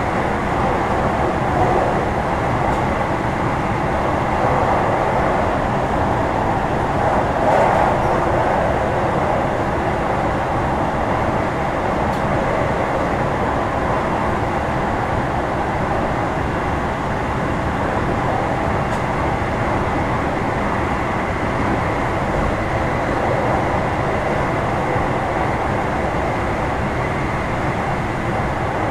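JR West 225 series 0-bandai electric multiple unit with Toyo IGBT traction equipment, heard from inside a passenger car while running at steady speed between stations. A continuous rolling rumble of wheels on rail and car noise, swelling slightly about seven seconds in.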